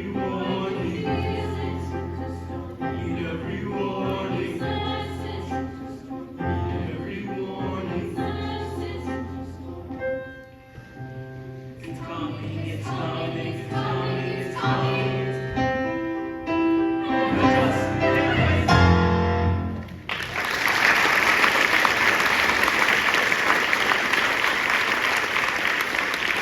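Mixed choir singing with accompaniment, the final phrases building before the piece ends about 20 seconds in. An audience then breaks into loud applause.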